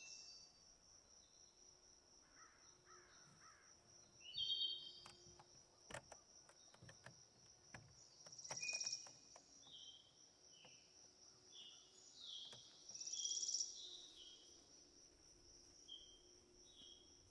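Quiet meadow ambience: a steady high insect trill throughout, with bird calls about four, nine and thirteen seconds in and short chirps between. A few faint knocks around six seconds.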